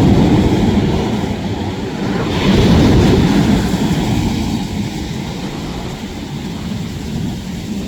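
Heavy surf: large sea waves breaking and rolling in, a deep, steady rush of noise that swells with a brighter hiss as a wave breaks about two and a half seconds in, then eases off.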